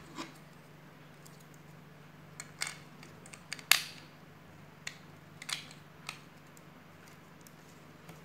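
Plastic LEGO bricks clicking and knocking as a built section is handled, pressed and set against the table: scattered short clicks, the sharpest a little before halfway. A faint steady hum runs underneath.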